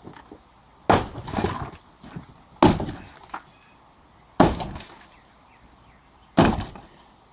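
Four heavy sledgehammer blows in demolition work, about two seconds apart, each a sharp crack followed by a short spill of breaking material.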